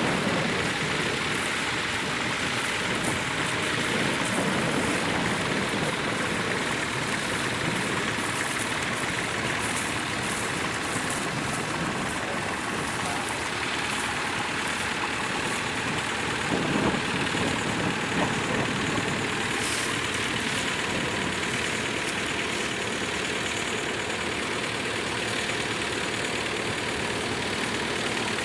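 Tractor engine running steadily, with two brief louder bumps about two-thirds of the way through.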